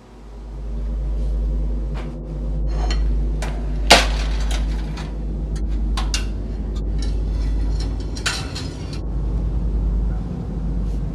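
Metal clinks and clatters of a spatula against an oven rack as a pizza is slid out of the oven and set down on a plate, the sharpest clink about four seconds in. Under them runs a low, steady rumbling drone that fades in over the first second.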